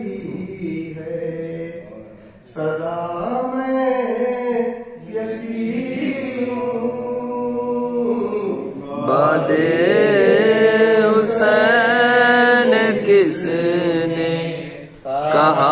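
A man's solo voice chanting a nauha, a Shia lament for Imam Hussain, in long melodic phrases with short breaks between lines. The voice grows louder and brighter about nine seconds in.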